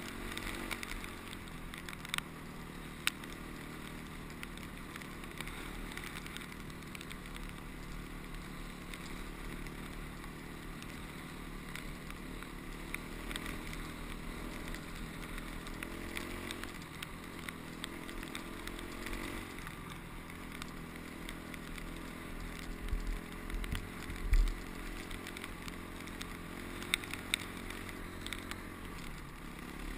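Honda CRF250X dirt bike's single-cylinder four-stroke engine running while riding, its revs rising and falling with the throttle. A few heavy low thumps come about three-quarters of the way in.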